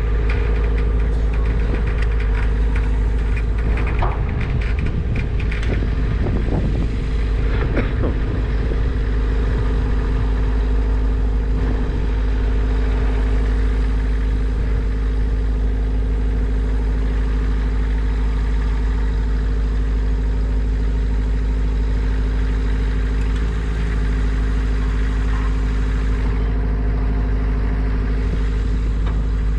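An engine idling steadily, with a few knocks and rattles in the first several seconds.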